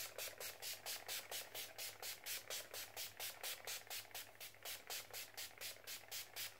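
Makeup setting-spray pump bottle spritzed rapidly and repeatedly, a string of short hissing sprays at about four or five a second.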